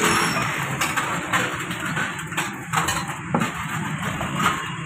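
Stainless steel plates and bowls clinking and clattering as they are handled and stacked, a string of sharp knocks over a steady busy background noise.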